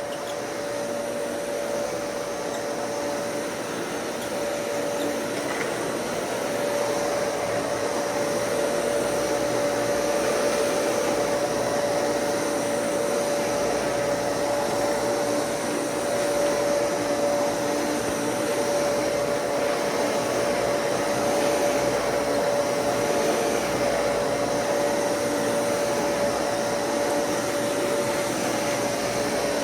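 Dyson Cinetic Big Ball vacuum cleaner running steadily while vacuuming, a rushing airflow with a steady motor whine, growing a little louder after about six seconds.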